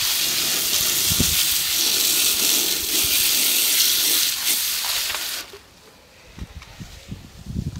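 Water spraying from a garden hose in a steady hiss that stops abruptly about five seconds in, followed by a few faint knocks.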